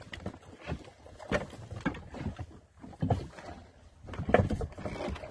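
Irregular knocks, clatter and low thuds aboard a small fishing boat as gear is handled.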